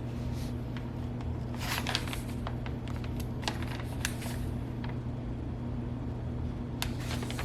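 Plastic vacuum-sealer bag and leather being handled: scattered light clicks and a few short rustles over a steady low hum.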